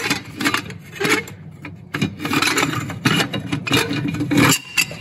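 A Soul Performance sport catalytic converter's metal pipe and flange rubbing and scraping against the exhaust mounting as it is worked into place by hand, with irregular clicks and knocks of metal on metal.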